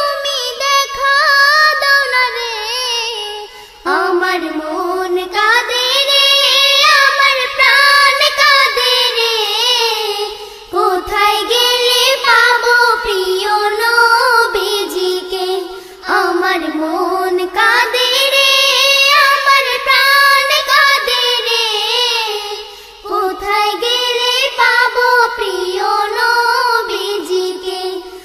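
A high solo voice singing a slow Islamic devotional song in long phrases with wavering held notes, pausing briefly for breath about every six seconds.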